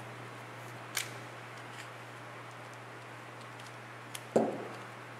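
Hand assembly of small metal parts with a ball-end Allen driver: a sharp metallic click about a second in, then a duller, louder knock of the part against the tabletop about four seconds in, over a steady low hum.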